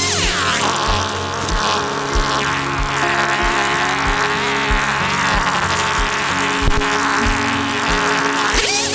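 Stihl MS211 two-stroke chainsaw cutting under load, its pitch sagging and wavering in the cut, with revs rising and falling just before the start and again near the end. A beat of background music runs underneath.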